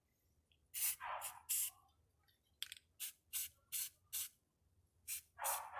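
Krylon aerosol spray-paint can hissing in about ten short bursts, each a fraction of a second, with brief gaps between them, as light coats of matte paint go on.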